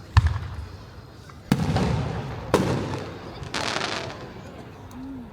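Aerial firework shells bursting: four booms about a second apart, the sharpest just after the start. Several of them trail off in a crackling hiss before the sound dies down near the end.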